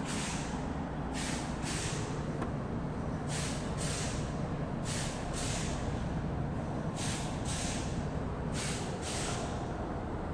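Air-conditioning unit running with a steady low hum, overlaid with short hissing whooshes that come in pairs about half a second apart, a pair every second and a half to two seconds.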